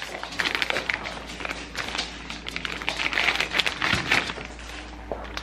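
Plastic potato bag crinkling and rustling as it is cut open with scissors and handled, in a run of irregular crackles that eases off near the end.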